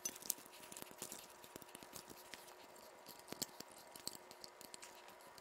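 Faint clicks, ticks and rustles of plastic connectors and wiring loom being handled and pulled loose from an N14 engine's wiring harness, over a faint steady hum.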